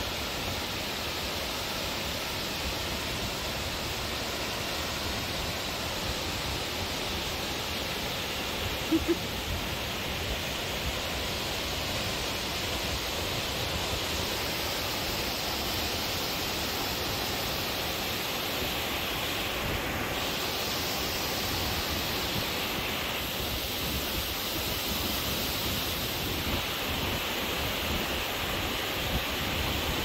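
Large cascading waterfall: a steady rush of water pouring over rock into a shallow, rocky pool. About nine seconds in, a brief double blip stands out above it.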